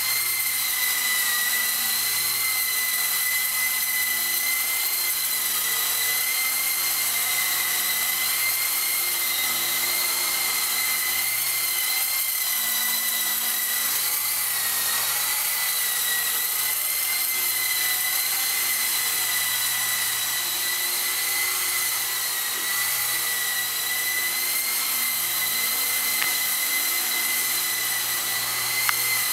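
E-flite CX3 Huey micro RC helicopter in flight: a steady high-pitched whine from its small electric motors over the hiss of its coaxial rotors. The pitch wavers slightly as it manoeuvres.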